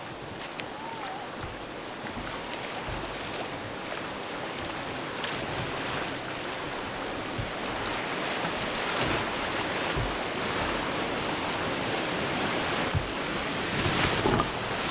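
Rushing river whitewater, rising steadily in loudness as the kayak runs into a rapid, with water splashing over the kayak's bow near the end.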